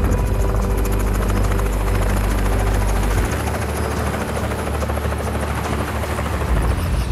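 Light helicopter flying low and passing overhead, its rotor beat and engine loud and steady. The deepest part of the sound falls away about three seconds in as it passes.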